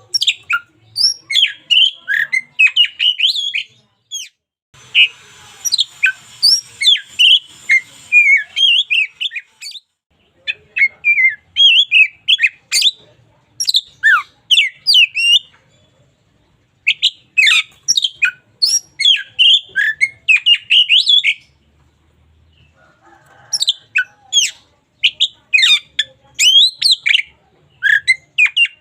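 Oriental magpie-robin singing a loud, varied song of rapid, sharp whistled notes and chirps, in phrases of a few seconds that break off briefly several times.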